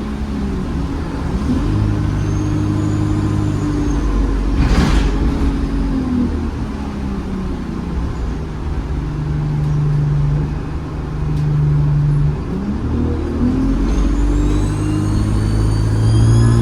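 ADL Enviro 200 single-deck bus engine pulling away under load: its note rises, drops back, holds steady, then climbs again. In the last few seconds a high turbocharger whistle rises in pitch. A brief hiss comes about five seconds in.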